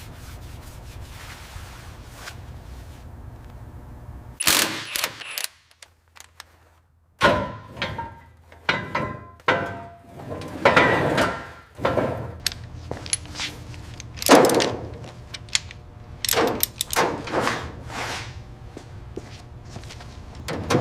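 Workshop sounds of hand work on metal car parts: irregular sharp knocks and clanks, some briefly ringing, over a low steady hum, broken by a moment of near silence about six seconds in.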